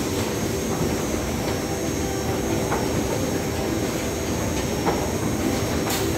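Steady mechanical rumble of a waste-sorting conveyor belt and its plant machinery running, with a faint steady hum and a few light knocks scattered through.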